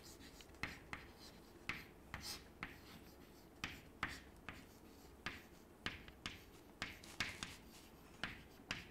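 Chalk writing on a blackboard: quiet, short taps and scrapes of the chalk, about two a second and irregularly spaced, as letters are written by hand.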